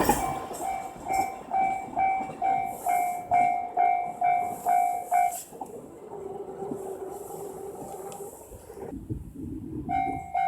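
Japanese railway level-crossing alarm ringing its electronic bell, a steady two-note ding struck about twice a second, as the rumble of a passing train fades. The bell stops about five seconds in, and after a few quieter seconds it starts ringing again near the end.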